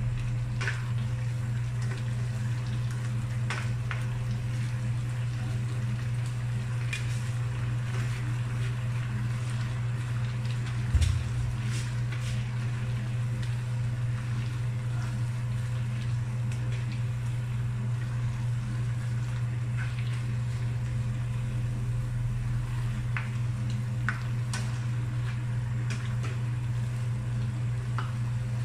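Spatula clicking and scraping in a wok as vegetables and leaves are stirred, over a steady low hum, with one louder thump about eleven seconds in.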